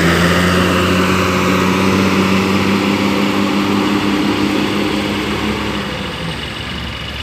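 Large bus's diesel engine running close by with a steady low hum that fades out about six seconds in.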